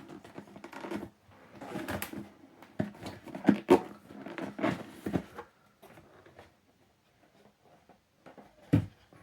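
A keyboard's cardboard box and packaging being handled: rustling with several light knocks and taps, then a quiet pause and a single thump near the end.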